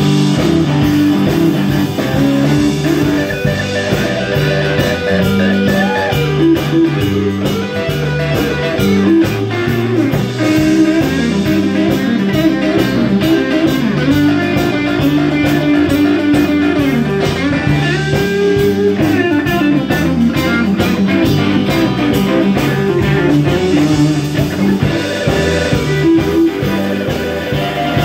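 Live blues-rock band playing an instrumental passage: an electric guitar lead with bent notes over bass and drums.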